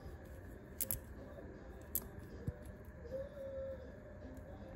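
A few faint, separate clicks of a small metal multi-tool being handled.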